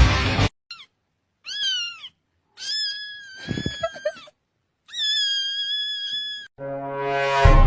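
A cat meowing four times, high-pitched: a short meow, a slightly longer one, then two long drawn-out meows. Near the end a rising swell of music begins.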